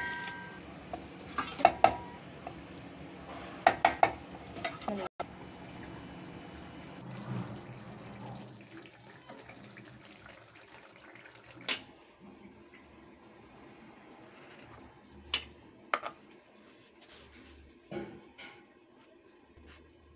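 A metal spoon clinking and scraping against steel cookware: a cluster of sharp taps in the first few seconds, then single clinks spaced out over quieter stretches.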